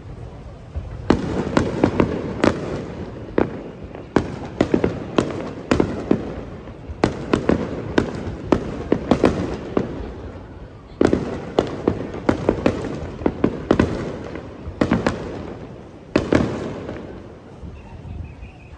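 Aerial fireworks bursting in rapid volleys: sharp bangs coming several a second in clusters, with short lulls between the volleys, thinning out near the end.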